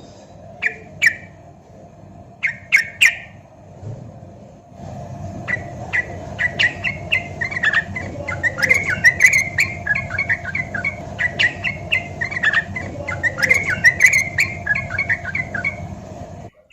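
Yellow-vented bulbul (trucukan) singing: two short chirpy phrases, then from about five seconds in a long run of quick, bubbly notes over a steady background hiss, which cut off sharply just before the end.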